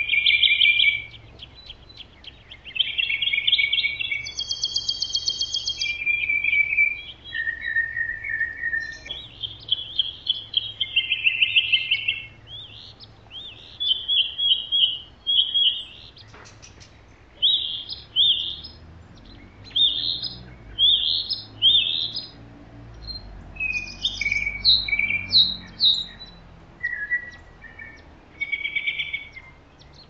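Wild songbirds singing: a steady run of short high whistled phrases, chirps and trills, one after another with short gaps.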